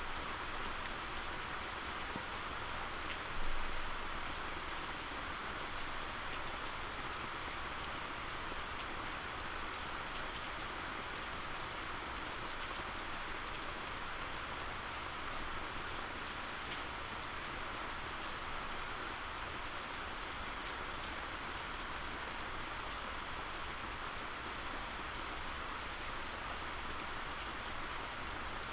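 Steady rain falling and pattering on surfaces, an even hiss with scattered drop ticks and a brief louder patch about three and a half seconds in.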